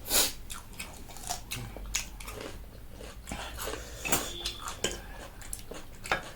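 Close-up eating sounds: chewing and biting with irregular sharp mouth smacks and light clinks of cutlery against dishes, the loudest smack right at the start.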